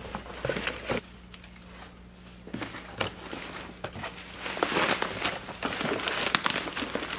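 Bubble wrap and cardboard packing crinkling and rustling as exhaust parts are handled and lifted out of a shipping box. It goes quieter for about a second and a half, then picks up again.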